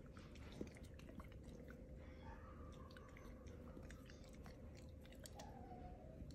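Near silence: room tone with a faint steady hum and scattered faint small clicks and taps.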